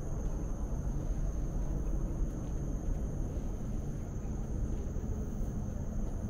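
Steady low outdoor background rumble with a faint, steady high-pitched tone above it.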